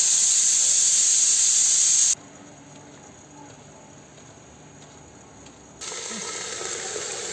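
A loud, steady hiss that cuts off abruptly about two seconds in, then a quiet stretch with faint tones, then a second, softer hiss that starts suddenly near the end.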